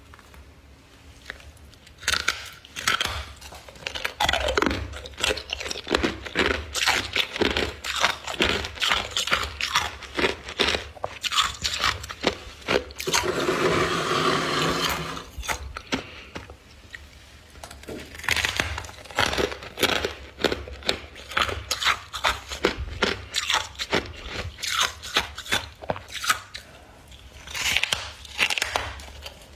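Humidifier frost being bitten and chewed: dense, crisp crunching, with a steadier continuous stretch about halfway through and a short lull after it.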